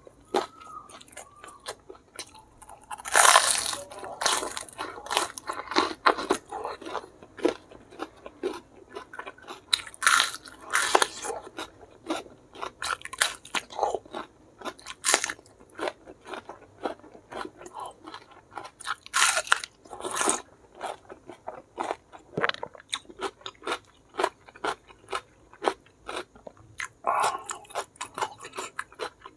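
Close-miked eating of a meal of raw vegetables and fried chicken: crunchy bites and chewing. Loud clusters of crunches come a few seconds in, around ten seconds in and around twenty seconds in.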